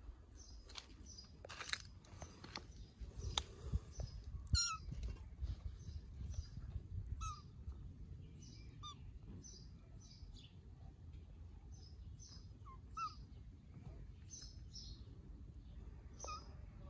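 Small birds chirping over and over, short high chirps every second or so, with a few louder calls.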